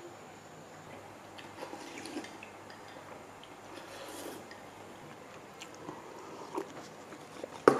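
Faint eating sounds at a table: sipping broth from a bowl and chewing, with a few small clicks and a sharper click near the end, over quiet room tone.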